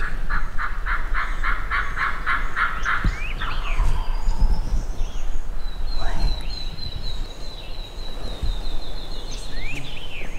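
Hen turkey yelping: a run of about a dozen evenly spaced yelps over the first three seconds. A songbird's long high trill follows about six seconds in.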